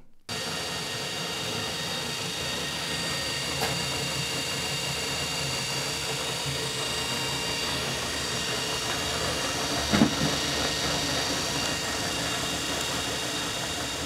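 Salvaged washing machine motor running steadily, belt-driving a hand truck wheel, giving a whirring whine with several high steady tones, and one short knock about ten seconds in.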